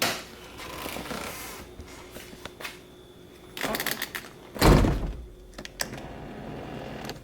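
Handling and rustling noises with a few light knocks, and one heavy thump a little over halfway through.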